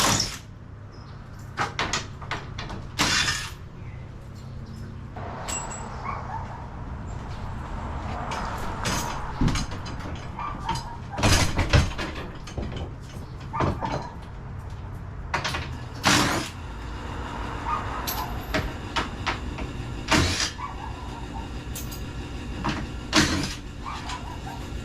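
Scattered sharp knocks and clanks, over a steady low hum, typical of garage door installation work.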